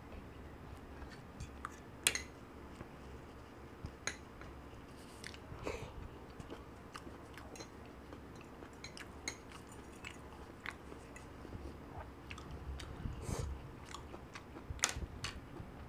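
A person chewing jajangmyeon black bean noodles with their mouth close to the microphone: soft wet chewing and lip smacks, with scattered short sharp clicks throughout.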